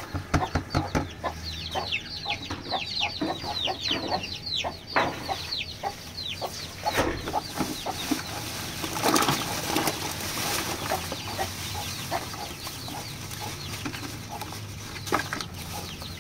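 Chicks peeping in rapid, falling chirps, busiest in the first five seconds, with chickens clucking and scattered short clicks and taps.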